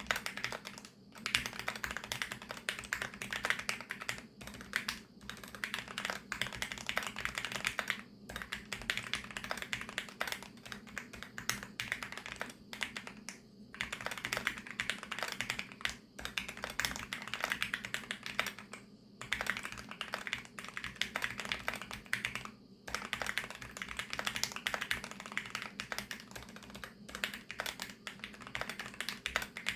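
Typing on a VARO V68+ 65% mechanical keyboard with VARO Panda linear switches lubed with Krytox 205: a fast, continuous run of keystrokes broken by a few short pauses.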